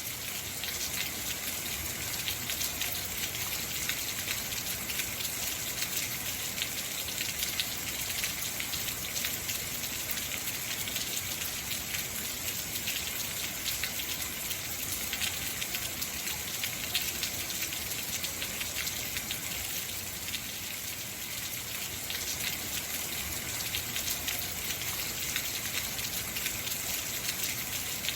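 Heavy rain falling steadily, a dense hiss of drops hitting surfaces with many small pattering impacts.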